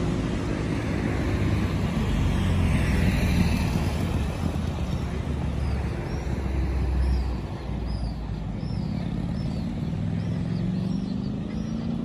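Road traffic: motor vehicle engines pass with a low hum that builds and then drops off about seven seconds in, followed by another engine rising gently in pitch near the end. Faint, repeated high chirps come in over the second half.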